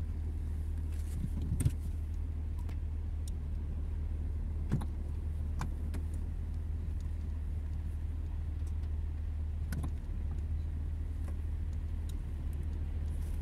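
Steady low rumble of parked trucks' diesel engines idling, with a few faint scattered clicks.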